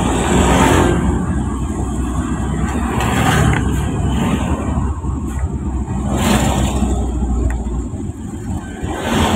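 Road and engine noise from a vehicle driving in city traffic, with motorcycles and cars passing close by several times. The low rumble eases near the end as the vehicle slows.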